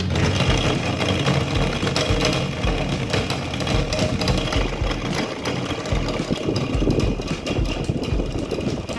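Electric table fan running with a steady, rough mechanical rattle.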